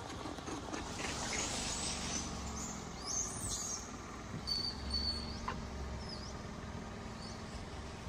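High-pitched animal chirps and whistles: a few short rising and falling calls, with one held whistle about halfway through, over a steady low rumble.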